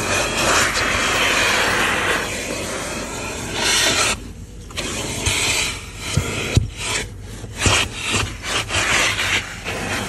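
Vacuum cleaner running with its hose nozzle dragged and pressed over car carpet: a rough rubbing, rasping noise that rises and falls as the nozzle moves. It dips sharply about four seconds in, then comes and goes with scrapes and light knocks of the nozzle.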